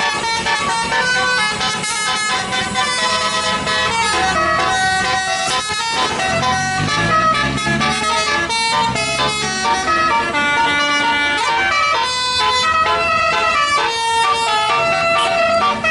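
Bus telolet horn of the Basuri type playing a tune: a long run of held horn notes, several pitches sounding together, stepping from note to note like a melody.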